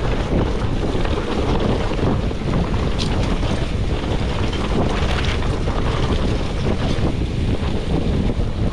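Wind buffeting the microphone over the steady rumble of a mountain bike rolling fast down a loose dirt and gravel trail, with a few sharper clicks and knocks from the bike about three and five seconds in.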